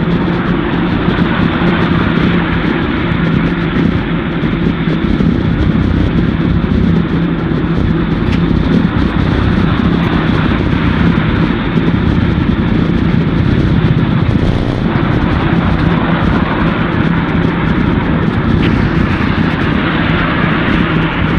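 Wind and riding noise on a helmet- or bike-mounted action camera while cycling in the rain: a loud, steady rushing rumble with a faint low hum under it.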